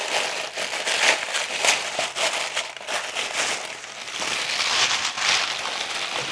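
Crinkling and rustling of packaging as a subscription box is opened by hand, with many small crackles throughout.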